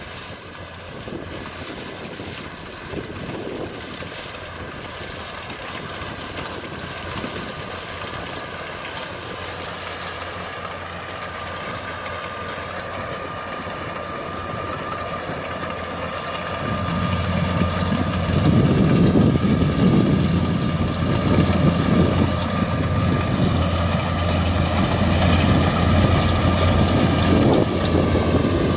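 Kubota DC95M rice combine harvester's diesel engine and threshing machinery running, with a steady high whine over it. About two-thirds of the way through, a heavy low engine rumble comes in and the machine grows much louder.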